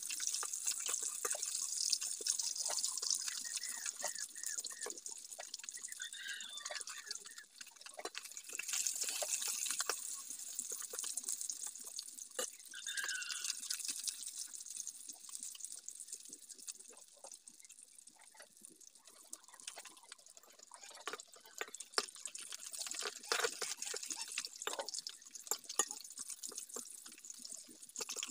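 Fish pieces coated in salt and turmeric frying in hot oil in a large wok: a steady high sizzle with frequent small crackling pops of spitting oil.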